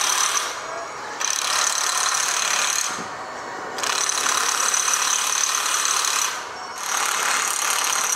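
Impact wrench running in bursts of a couple of seconds with brief pauses between, tightening bolts on steel roller coaster track and supports.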